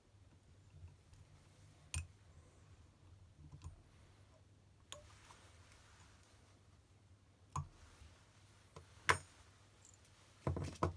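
Light clicks and taps of small fly-tying tools being handled: a whip-finish tool finishing the thread head, and scissors snipping the tying thread. Several separate clicks, the sharpest about nine seconds in, and a short run of clicks just before the end.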